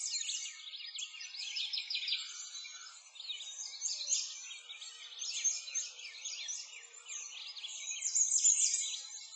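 A chorus of many small birds singing and chirping together, a dense overlap of quick, high chirps and trills.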